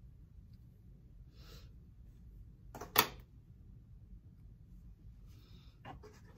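Hair-cutting shears closing with one sharp snip through a section of hair about three seconds in, with fainter brief rustles of a comb and hair before and after.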